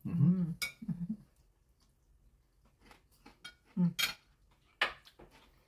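Cutlery clinking against a plate while eating: a few sharp separate clinks, with short murmured vocal sounds in the first second and again about four seconds in.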